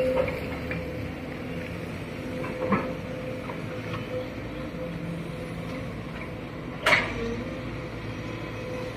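Sumitomo hydraulic excavator working, its engine and hydraulics running with a steady whine, with two sharp knocks about three and seven seconds in, the second the louder.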